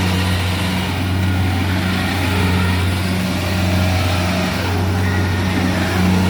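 Kubota rice combine harvester running steadily, its diesel engine a constant low drone.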